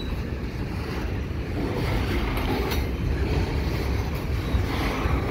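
Double-stack intermodal well cars loaded with shipping containers rolling past: a steady low rumble of steel wheels on rail, with a few faint clicks.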